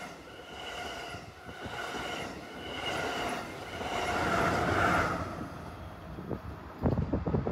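Amtrak Pacific Surfliner cab car's chime horn sounding about four short blasts and then a longer, louder one about four seconds in that fades away, over the noise of the passing train. Near the end, gusts of wind hit the microphone.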